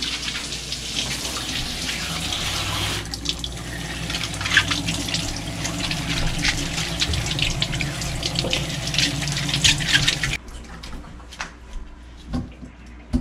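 Kitchen faucet running onto a bunch of asparagus spears held under the stream in a stainless steel sink, the water splashing off the stalks. The tap cuts off suddenly about ten seconds in, leaving a few light knocks.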